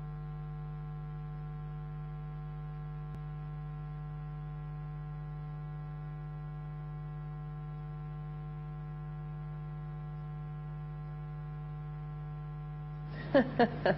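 A steady low hum with many evenly spaced overtones above it, holding the same level throughout.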